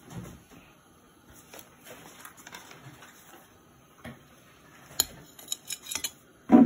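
Cardboard pizza box and a metal pizza server being handled while a slice is served onto a plate, with quiet rustles and scattered small clicks. Several sharp clinks follow from about five seconds in, and a louder clatter comes near the end.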